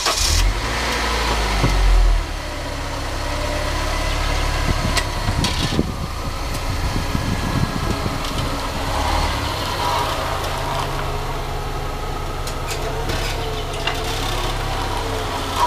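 A 2000 Honda CR-V running at low speed, its engine humming steadily with a louder low rumble in the first two seconds. Rattling comes through in the middle, which is the exhaust pipe rattling.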